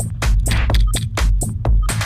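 Electronic dance music with a heavy, pulsing bass and a fast, steady beat of sharp percussion.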